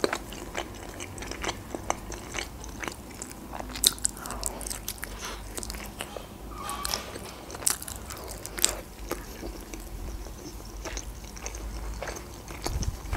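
Close-miked biting and chewing of a Georgian khinkali dumpling, with many short mouth clicks.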